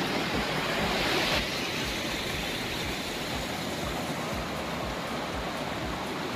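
Steady rush of water from a waterfall and its rocky stream, a little softer in the upper range after about a second and a half.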